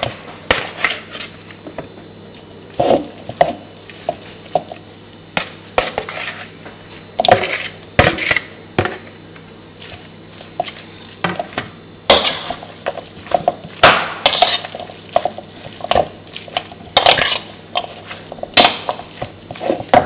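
A metal spoon mixing raw minced meat in a bowl: irregular clinks and scrapes of the spoon against the bowl, busier in the second half.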